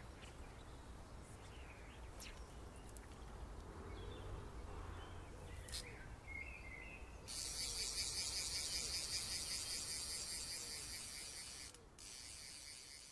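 Click-and-pawl fly reel ratcheting fast as line is wound in. It starts about seven seconds in, breaks off briefly near the end, then carries on more faintly. Before it there is only a low outdoor rumble and a few faint bird chirps.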